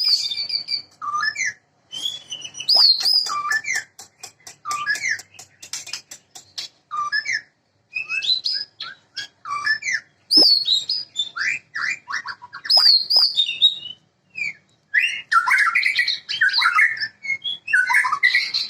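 White-rumped shama (murai batu) singing: short, varied whistled phrases with pauses between them, a quick run of clicks about a third of the way in, and denser, chattering phrases near the end.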